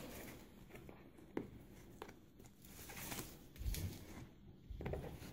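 Faint rustling and scuffing of a ribbon being pulled and tied around a plastic bowl, with a sharp light click about a second and a half in and a soft bump a little past the middle.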